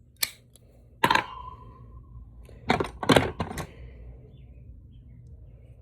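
Small metal tools being handled and set into a toolbox: a sharp clink about a second in that rings for about a second, then a quick run of clacks and knocks.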